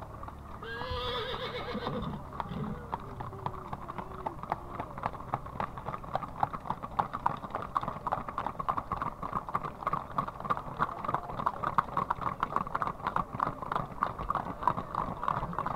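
Many horses' hooves clopping on an asphalt road as a herd of loose horses walks and trots past, a dense overlapping patter that grows louder after the first few seconds. A horse whinnies about a second in.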